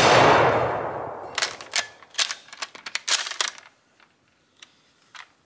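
The echo of a Type 99 Arisaka bolt-action rifle's shot dies away over the first second. Then a quick run of metallic clicks and clacks follows as the bolt is worked to eject the spent case and chamber the next round, with a few faint ticks near the end.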